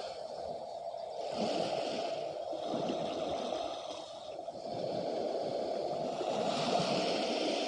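Sea water washing against the shore, a rushing wash that swells and fades every couple of seconds.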